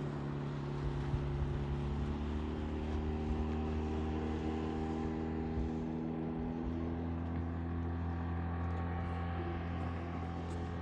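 2005 Mercury 8 hp four-stroke outboard running at steady throttle, pushing a 14-foot inflatable boat and towing a tube: a steady hum whose pitch slowly falls.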